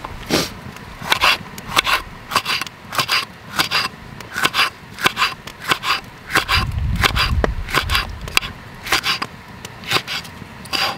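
Kitchen knife slicing a green pepper into rings on a wooden cutting board, each stroke a crisp cut ending in a tap on the board, about two to three a second.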